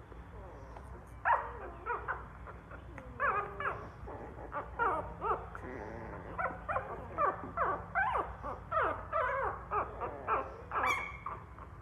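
Puppy whimpering: a run of short, high, wavering whines that starts about a second in and comes faster and more steadily through the second half.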